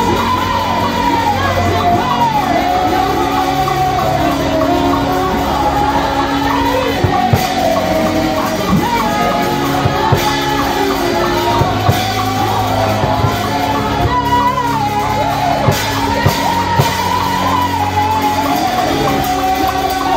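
Live worship music: a singer's voice, amplified through a handheld microphone, sings a praise song over instrumental backing, with shouts mixed in.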